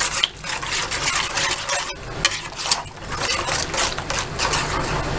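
Pot of coconut-milk broth cooking on the heat: a dense, crackling bubbling with stirring in the pot.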